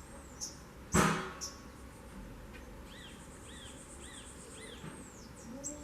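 A small bird chirping: high, fast trills and a run of four short arched chirps, with one sharp knock about a second in.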